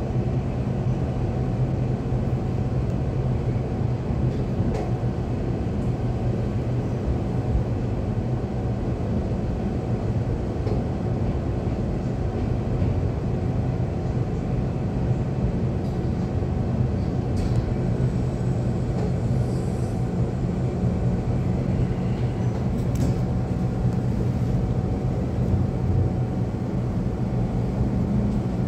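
Cabin noise inside a Taiwan Railway electric multiple-unit local train running between stations: a steady low rumble of the wheels on the track, with a faint constant whine. A few faint clicks come in the second half.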